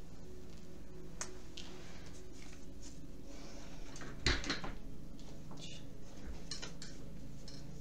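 A sharp knock about four seconds in, with a few fainter clicks, over a steady low hum.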